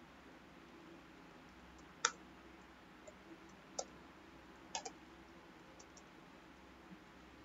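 Scattered clicks of a computer mouse and keyboard: a sharp click about two seconds in, another near four seconds, a quick double click near five, and a few fainter ones. A faint steady low hum runs underneath.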